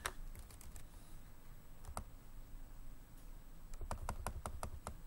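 Computer keyboard typing: a few scattered clicks, then a quick run of about eight keystrokes near the end as a short word is typed.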